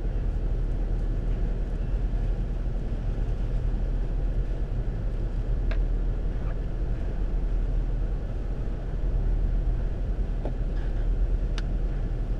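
Steady low rumble of a car idling, heard from inside the cabin, with two faint clicks, one about halfway through and one near the end.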